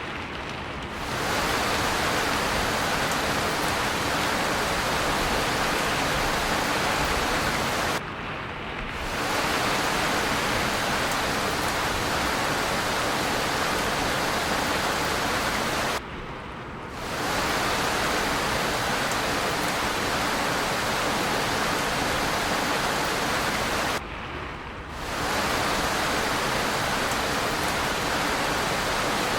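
Steady hiss of rain falling. About every eight seconds it briefly drops and goes duller for about a second, then returns.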